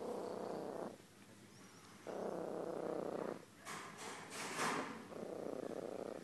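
Calico domestic cat purring close up, in long rhythmic pulses about a second each with short pauses between them. Two short, sharp bursts of noise come around the middle.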